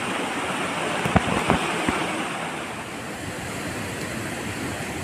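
Rushing water of a rocky stream over boulders and small rapids, a steady wash. A few dull knocks come between one and two seconds in.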